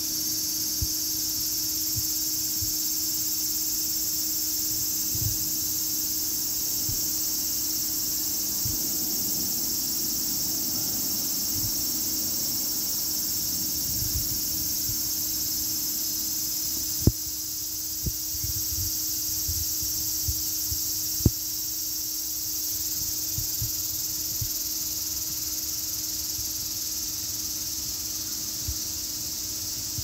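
Cicadas singing in the tree canopy: a steady, high-pitched shrill chorus without pause. A few sharp knocks cut in about two-thirds of the way through.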